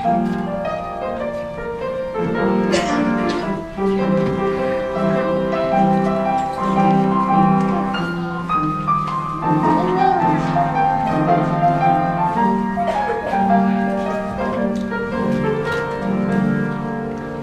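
Instrumental music from a stage musical, led by keyboard, with held notes over a low bass line, playing for a dance.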